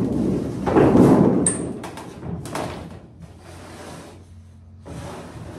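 A run of heavy thuds and knocks with scraping noise, loudest at the start and about a second in, then smaller knocks fading to a low rustle.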